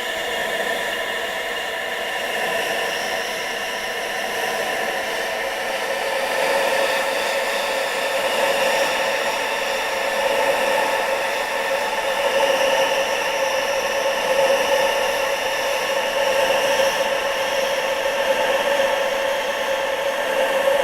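Steady rushing wind with several held whistling tones woven through it, swelling a little louder after several seconds.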